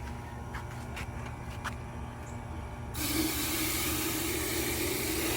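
Water running into a vase, starting suddenly about three seconds in as a steady hiss, after a few light clinks.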